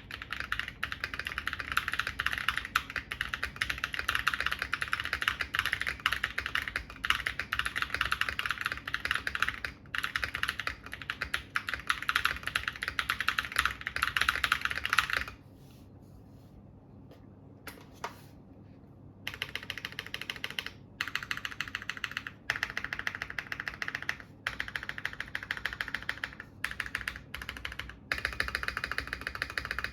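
Typing on a GAS67 mechanical keyboard with Akko Rose Red linear switches, lubed and on 55g double-stage springs, in a case with a PE foam mod. It is fast, continuous typing for about fifteen seconds, a pause of about four seconds with a single keystroke, then typing again in short runs.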